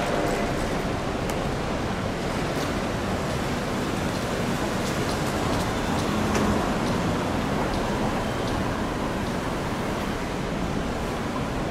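Steady city street noise: an even rush of traffic, with faint scattered ticks and clicks.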